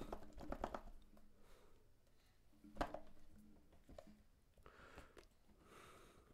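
Faint handling noise of a small cardboard AirPods box being turned in the hands: a few soft clicks and taps, one sharper tap about three seconds in, and light rustling of the cardboard near the end.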